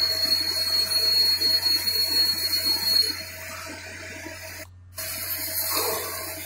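CNC lathe turning a metal workpiece: a steady hiss of cutting and coolant with a thin high whine. It drops in level about three seconds in and cuts out briefly near five seconds before resuming.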